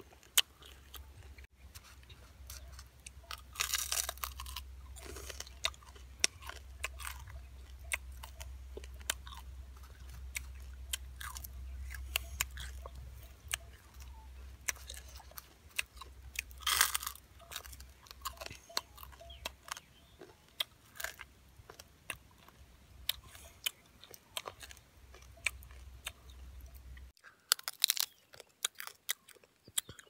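A person chewing and crunching roasted small bird, with irregular crackly bites of bone and crisp skin. There are louder crunches about four seconds in and again about seventeen seconds in.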